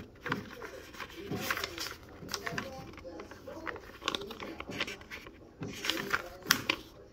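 Paper pages of a small, thick notebook being flipped by hand, with soft rustling and several short, sharp flicks as leaves turn over.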